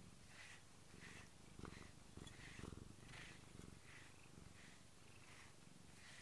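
Domestic cat purring softly, a steady low pulsing hum, while being brushed. Soft brush strokes through the fur come about every two-thirds of a second.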